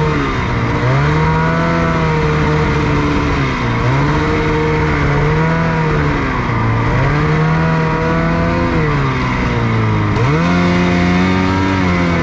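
Snowmobile engine running under throttle, its pitch dropping and climbing back about four times as the throttle is eased off and reapplied, over a steady rushing noise.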